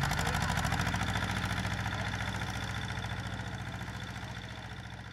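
Small vintage tractor's engine running slowly with an even chugging beat as it drives across a field, the sound gradually fading away.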